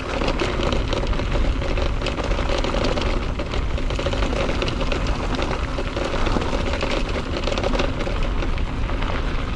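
Electric mountain bike riding through mud: tyre and trail noise with constant rattling and crackling of the bike, a strong wind rumble on the helmet-camera microphone, and a faint steady whine underneath.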